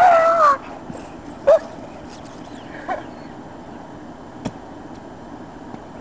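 Greater Swiss Mountain Dog giving a loud, high-pitched cry that ends about half a second in, then two short yips about 1.5 and 3 seconds in, and a single sharp click.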